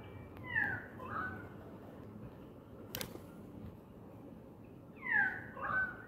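A cat giving two short meowing calls, each a falling note followed by a shorter second note: one about half a second in and one near the end. A single sharp click comes midway between them.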